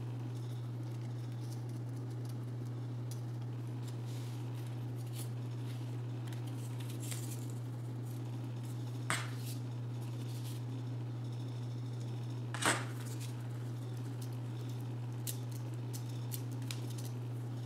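Steady low hum throughout, with soft rustles and a few short taps as paper flowers and floral-taped wire stems are handled and gathered; the sharpest tap comes about two thirds of the way in.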